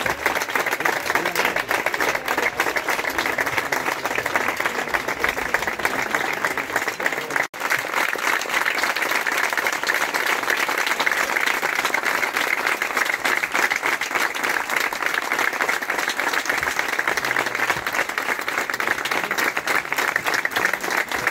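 A crowd applauding, many hands clapping steadily and without a break in intensity, apart from a momentary dropout about seven and a half seconds in.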